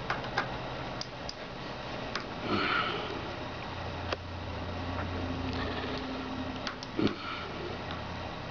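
Scattered light clicks and taps of hand tools on metal as bolts on a bicycle's stem and fork are loosened, with a short breathy noise about two and a half seconds in.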